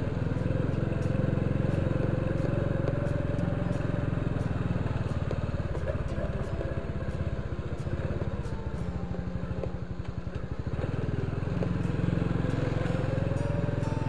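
Small motorcycle engine running steadily while riding, easing off briefly around the middle and then picking up again.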